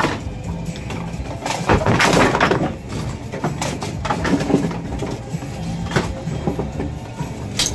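Automatic bowling pinsetter running with a steady low hum and repeated mechanical clunks. About two seconds in, a bowling ball crashes into the standing pins, a loud clatter of pins lasting about a second, and the sweep bar clunks as it cycles across the pin deck afterwards.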